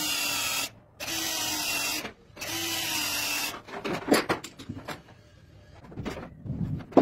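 Cordless drill running in three short bursts of about a second each, with a long twist bit in the bore of a metal ring held in a lathe's four-jaw chuck. After it, metal knocks and clatter as tools are handled, with a sharp knock at the end.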